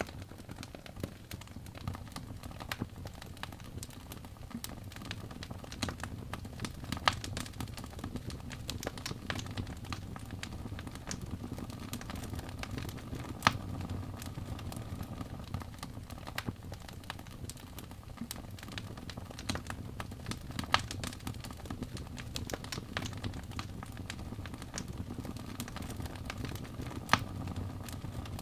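Wood fire crackling in a fireplace: a steady low rumble of flames with frequent small crackles and a few sharper pops spread through.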